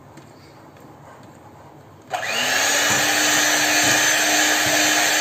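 Electric hand mixer switched on about two seconds in, its motor whine rising briefly as it spins up, then running steadily. Its wire beaters are churning a thick cake batter in a glass bowl.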